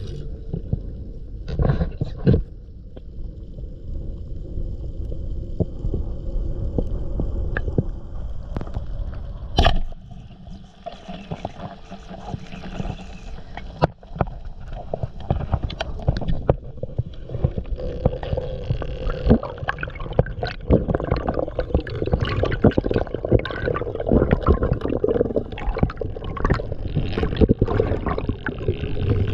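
Underwater sound at a spearfisher's camera: water moving and gurgling around the housing, with scattered clicks and knocks that grow busier and louder in the second half.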